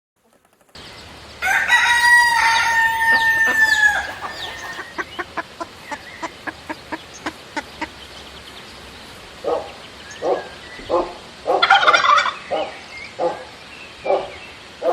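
A rooster crows once, a long held call that drops in pitch at the end, followed by chickens clucking: first a quick run of short clucks, then slower clucks with a louder squawk in the middle.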